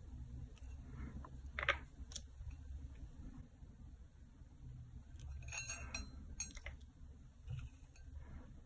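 A low, steady room hum with a few small, faint clicks and taps: a dotting stylus being dipped in a paint pot and touched to the canvas as dots are placed, with a short cluster of clicks a little past the middle.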